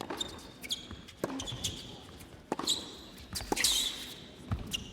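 Tennis rally: rackets striking the ball and the ball bouncing at irregular intervals, with short high squeaks of players' shoes on the court.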